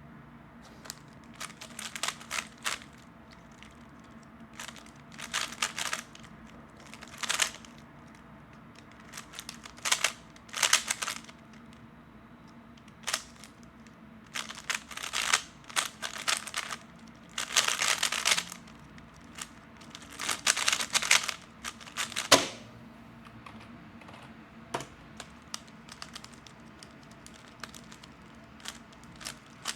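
A 3x3 speedcube being turned fast, its plastic layers clacking in quick bursts of about a second with short pauses between. The turning stops a little past the middle, leaving only a few faint ticks.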